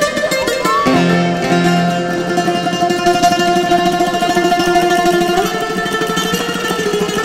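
Bouzouki music: a melody of long held notes sustained by fast tremolo picking.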